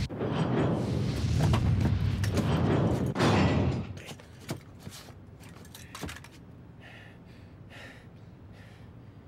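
Explosion sound effect: a heavy, low rumbling blast with a second surge about three seconds in, cutting off sharply about four seconds in. It is followed by a much quieter stretch with a few faint clicks.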